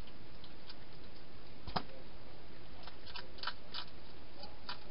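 Wild European hedgehog eating inside a plastic feeding box: scattered short crunches and clicks, with a sharper click just under two seconds in and a small cluster about three and a half seconds in, over a steady hiss.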